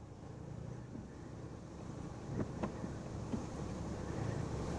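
Wind buffeting the microphone, a low rumble that builds steadily louder, with a few faint clicks about halfway through.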